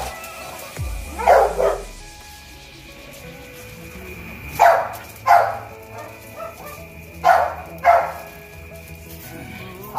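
American bully puppies barking: three pairs of short, sharp barks spaced a few seconds apart, over steady background music.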